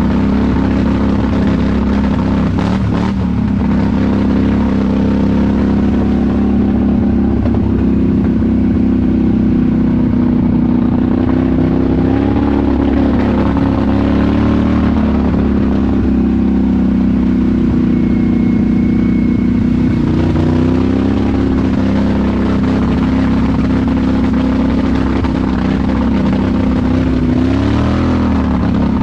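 Polaris Sportsman HighLifter ATV engine running under way, heard from the rider's seat. It holds a steady tone with a few brief rises and dips in pitch as the throttle changes.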